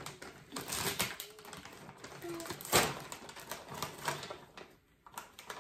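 Crinkly plastic snack bag being handled, a quick run of crackles and rustles that is loudest near the middle.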